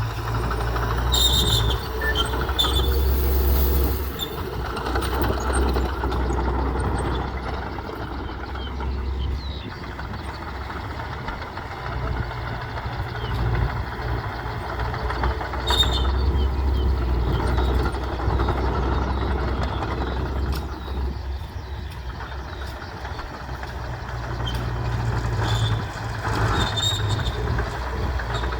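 Bulldozer's heavy diesel engine working, its rumble swelling under load and easing off in several long waves, with short high metallic clinks and squeaks now and then.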